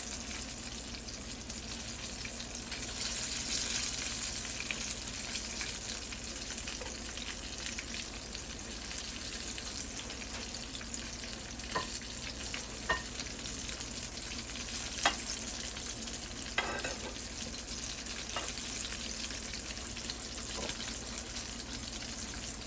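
King fish pieces frying in a pot of hot oil, a steady sizzle. In the second half come a few light, sharp clicks.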